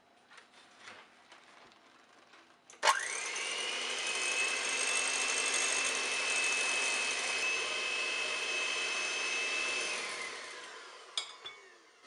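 Electric hand mixer switched on about three seconds in, running steadily with a high whine as its beaters whisk eggs and sugar. Near the end it is switched off and winds down, its whine falling in pitch, followed by a click.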